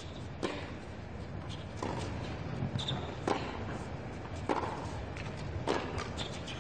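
Tennis rally on a hard court, opened by a serve: racquets strike the ball about five times, one sharp hit roughly every second and a quarter.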